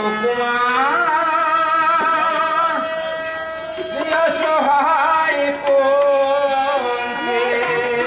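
Bengali folk song (Bolan gan): a voice singing a wavering melody over the steady held drone of a harmonium, with a jingling percussion instrument shimmering throughout.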